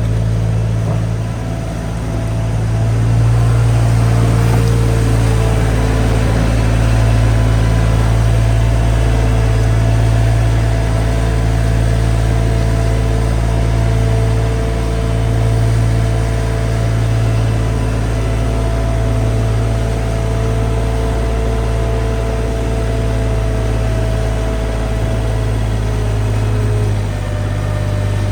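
An engine running steadily at an even speed: a low hum with a faint steady whine above it and a slight dip in level about two seconds in.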